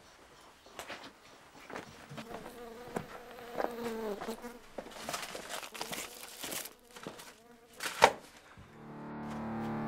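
A fly buzzing about, its pitch gliding, among scattered small clicks and knocks, with one sharp knock about eight seconds in. Music fades in near the end.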